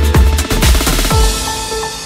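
Electronic dance music with a heavy kick drum about twice a second; the beat drops out about halfway through, leaving a fading wash, and held keyboard notes come in.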